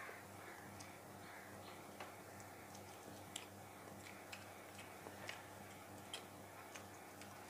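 Quiet sounds of a man eating rice by hand from a steel plate: faint, sharp little clicks, roughly one a second and unevenly spaced, over a low steady room hum.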